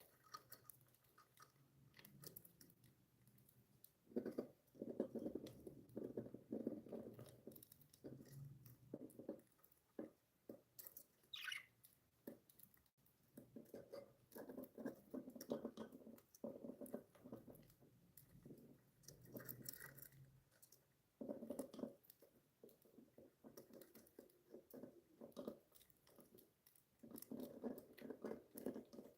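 Faint crunching and clicking from budgies chewing, coming in bursts of several seconds, with one short chirp about eleven seconds in.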